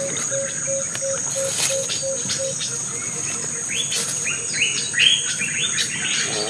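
Outdoor chorus of birds and insects: a steady high insect whine throughout, a low piping note repeated about three times a second that stops about two and a half seconds in, then a quickening run of bird chirps in the second half.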